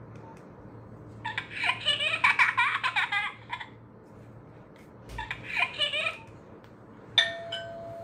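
Nokia 1280 ringtone previews playing from the phone's speaker while scrolling the ringing-tone list: two bursts of fast warbling electronic notes, then a sharp note near the end that leads into a held steady tone.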